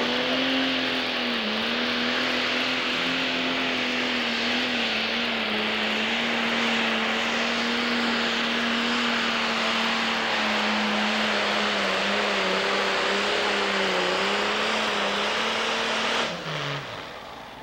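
Pro stock pulling tractor's turbocharged diesel engine running flat out under the load of a weight-transfer sled, a loud steady note whose pitch sags slightly as the pull goes on. About sixteen seconds in the engine winds down sharply and goes quieter.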